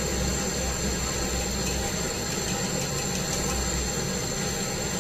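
Gas brazing torch flame burning steadily, a continuous low rumble with a hiss, as it heats the copper charging pipe on a refrigerator compressor for brazing.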